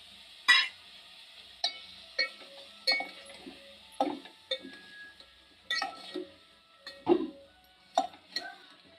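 Steel ladle clinking and scraping against the sides and bottom of a metal cooking pot while stirring chicken with spices. It makes about a dozen irregular knocks, one or two a second, some with a short ring from the pot. The loudest comes about half a second in.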